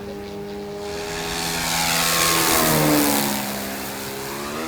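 Electric-powered quarter-scale model Spitfire flying past, its propeller and electric motor humming. The sound swells to its loudest about two to three seconds in, and its pitch drops as the plane passes, then it eases off.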